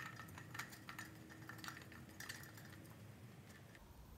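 Faint light clicks and scraping of a metal gas cartridge being screwed by hand into the threaded gas holder of a smoke machine. The clicks come mostly in the first half and thin out toward the end.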